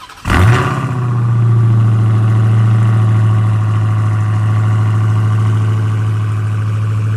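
Car engine starting up with a brief flare in revs, then running steadily at a high idle.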